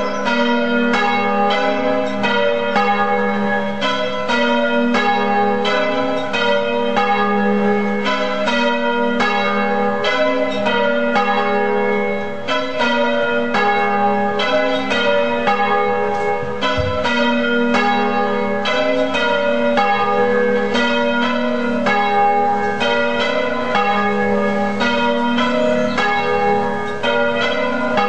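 Church bells ringing in a continuous, even succession of strikes, each one ringing on into the next.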